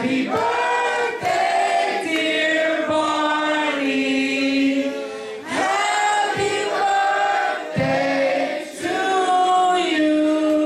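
A singer singing into a handheld microphone, holding long notes one after another with short breaks between phrases, with little or no backing music.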